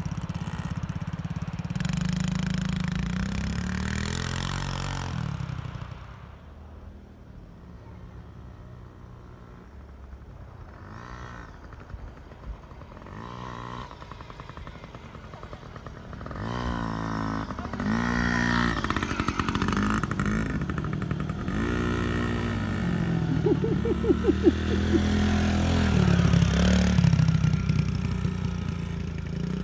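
Small children's dirt bike engines running and revving, the pitch rising and falling with the throttle. They fade for a stretch from about six seconds in, then come back louder with repeated revs in the second half.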